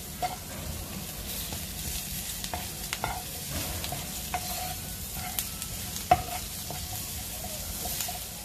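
Sliced onions and cashews sizzling in a frying pan while a wooden spatula stirs them. The spatula scrapes and taps against the pan in irregular strokes over a steady frying hiss, with the sharpest knock about six seconds in.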